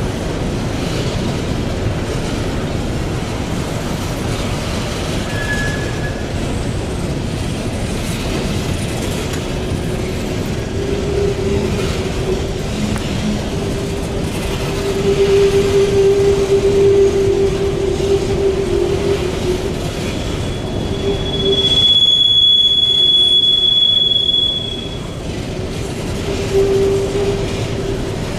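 Empty steel coal hopper cars rolling past, wheels running steadily on the rails. Steel wheels squeal on the curve several times in a lower pitch, with one shrill, higher squeal lasting a few seconds near the end.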